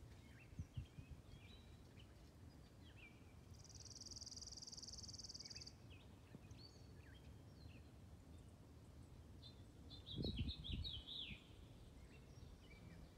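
Faint outdoor birdsong: scattered short high chirps, with a buzzy high trill lasting about two seconds a few seconds in. Around the ten-second mark a few low thumps, the loudest sounds here, come with a quick run of chirps.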